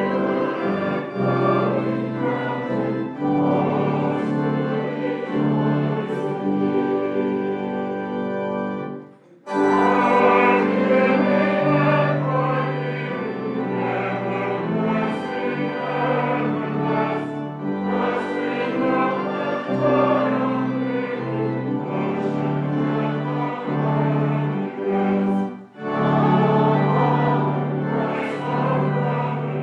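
Closing hymn sung by a congregation with organ accompaniment, in long held chords. The music breaks off briefly between lines about nine seconds in and again near the end.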